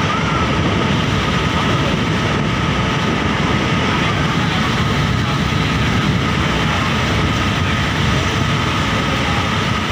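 Steady, loud drone of a river ferry's engine running under way, with a faint steady whine above it.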